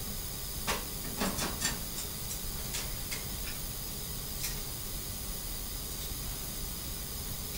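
Steady background hiss of recording noise, with a few faint light clicks and ticks in the first half.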